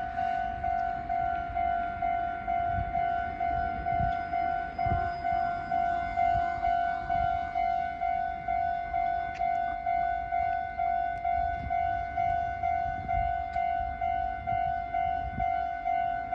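Japanese railway level-crossing warning alarm ringing: a newly installed electronic crossing bell repeating a single-pitched ding at an even rate of a little under two strikes a second.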